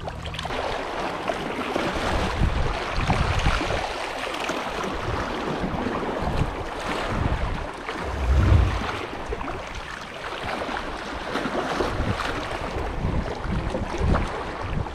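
Sea wind buffeting the microphone in uneven low gusts, the strongest about eight and a half seconds in, over a steady wash of waves against the jetty rocks.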